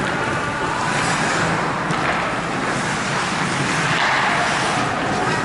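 Steady ambient noise of an ice hockey game in play, with skates scraping and carving on the ice.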